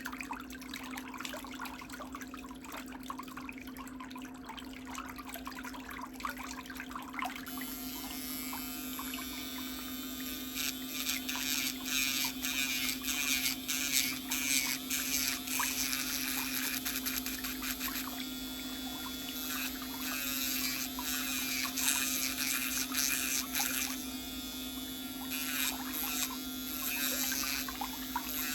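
Electric nail drill (e-file) with a steady motor hum. A watery hiss runs through the first few seconds. From about seven seconds in, a brighter whine wavers in pitch as the bit is pressed onto the toenail and lifted off, grinding it down.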